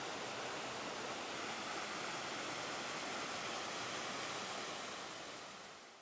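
Small waterfall pouring down a rock chute into a pool, a steady rush of falling water that fades out near the end.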